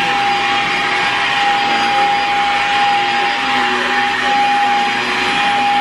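Stick vacuum cleaner running steadily as it is pushed over carpet, a constant rushing of air with a high, even whine over it.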